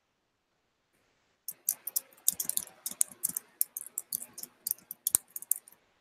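Rapid, irregular clicking at a computer, starting about a second and a half in, with one louder click near the end.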